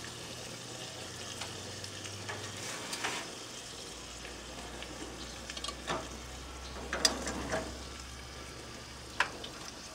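Rabbit pieces sizzling in a hot cast-iron dutch oven on a gas grill. A few sharp knocks sound as the pot is handled with a wooden spoon, about seven seconds in and again near the end.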